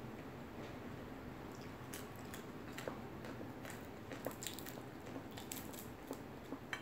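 Eating sounds close to the microphone: chewing with scattered small crunches and clicks, while a piece of fish is pulled apart by hand. The clicks come mostly from about a second and a half in.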